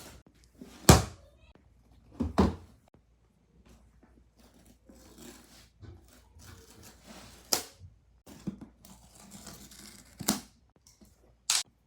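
An iPad box and its wrapping being handled: a string of separate thumps and knocks, the loudest about a second in, with quieter tearing and rustling between.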